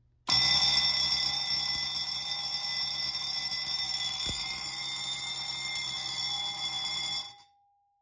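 Fire alarm bell ringing continuously off a Simplex 4001C panel: the alarm is confirmed after an alarm-verification soft reset, with smoke still at the detector. It starts suddenly and stops abruptly about seven seconds in as the signals are silenced, leaving a short fading ring.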